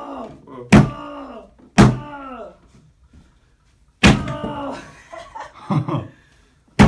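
A sneakered foot kicking a wooden desk apart: four loud bangs at uneven intervals with smaller knocks between, each bang followed by a brief ring that falls in pitch.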